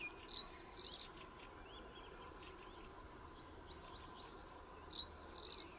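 Faint songs and calls of small birds: scattered short high chirps, with a brief rapid trill about a second in and again near the end, over quiet open-air background noise.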